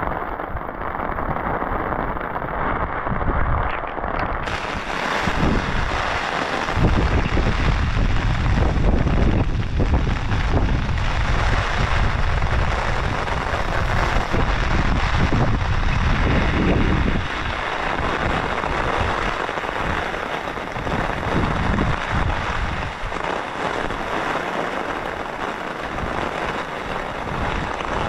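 Heavy rain falling steadily. A deep rumble runs underneath from about five to seventeen seconds in.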